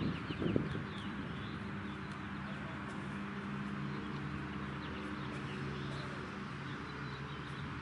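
Outdoor ambience: small birds chirping repeatedly over a steady hiss and a low hum, with a brief louder rustle about half a second in.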